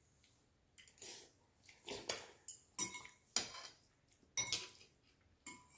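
Eating utensils clinking and scraping against a bowl and plate as food is picked at: a string of short, irregular clinks, a few of them ringing briefly.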